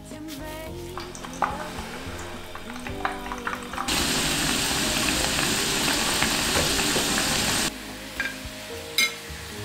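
Skewered rice cakes deep-frying in hot oil: a loud, steady sizzle that starts suddenly about four seconds in and cuts off with about two seconds left, over soft background music.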